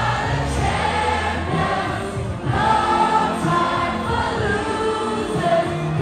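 Music with singing over sustained bass notes.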